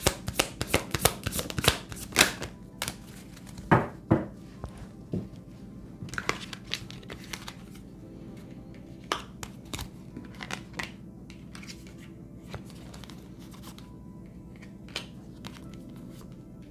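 A deck of tarot cards shuffled by hand, a quick run of card flicks for the first couple of seconds, then cards drawn and laid down with occasional soft slaps and flicks. Soft background music runs underneath.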